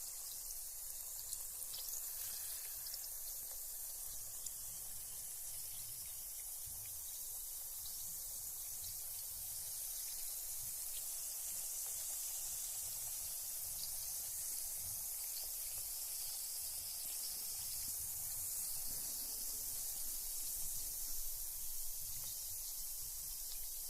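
Carbonated bath bomb fizzing in bath water: a steady high hiss with faint tiny pops of bursting bubbles.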